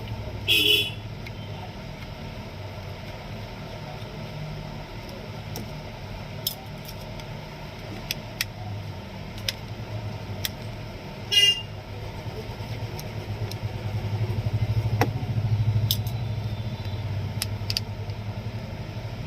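Steady road-traffic rumble that swells for a couple of seconds near the end, with two short vehicle horn toots, one at the start and one about eleven seconds in, and scattered light clicks and taps.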